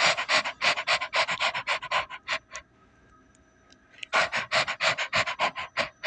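A person imitating a Maltese dog's panting: quick, breathy pants about five a second, in two runs with a pause of about a second and a half between them.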